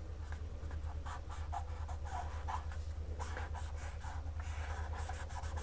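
Felt-tip marker pen scribbling on paper in quick, short strokes as it colours in a shape, over a steady low hum.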